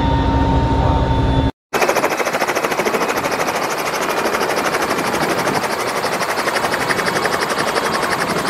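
Helicopter first heard from inside the cabin as a steady engine and rotor hum, then, after a short break, heard from outside on the ground as a fast, even chop of the turning rotor.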